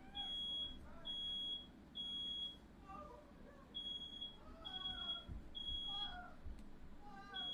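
Smoke alarm sounding its high-pitched beep in groups of three with a short pause between groups, set off by smoke from a firework that set something alight in the room.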